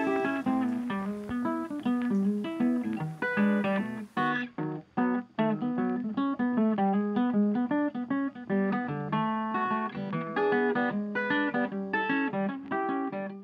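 Background music: a plucked acoustic guitar playing a run of short notes, with a couple of brief pauses about four to five seconds in.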